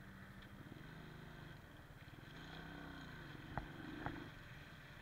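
Motorcycle engine running at low speed, its pitch shifting slightly as the bike rolls through a toll lane, with two sharp clicks about half a second apart a little past halfway.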